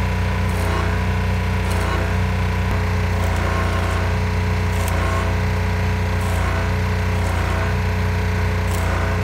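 Electric arc welding on a kei truck's broken steel frame: a steady, rapid crackling buzz from the arc over a constant low hum.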